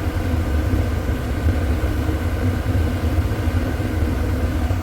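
RV propane furnace running steadily with its burner lit and blower on: a steady low rumble with faint whining tones above it. The furnace is staying lit rather than shutting off after two seconds.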